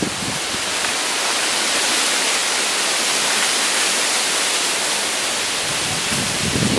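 Steady hiss like static or rushing water, even and unbroken, with a few low thumps near the end.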